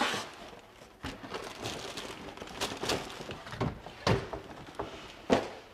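Cardboard model-kit box being handled: the inner box sliding out with a brief scraping hiss, then scattered knocks, thuds and rustles of cardboard and bagged plastic parts, with louder thuds about four seconds in and again near five.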